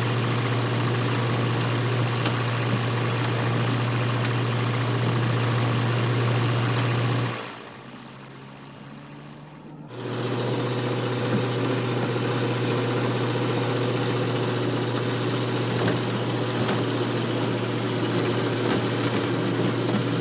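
Light aircraft's piston engine and propeller droning steadily in flight. A third of the way in the drone drops to a muffled, much quieter hum for about two and a half seconds, then cuts back in at full strength.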